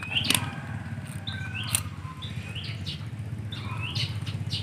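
A bird chirping over and over, short rising calls about once a second, above a steady low hum.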